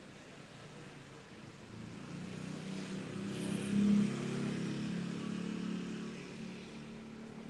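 A motor vehicle passing on the street: its engine grows louder from about two seconds in, is loudest around four seconds in, and fades away again.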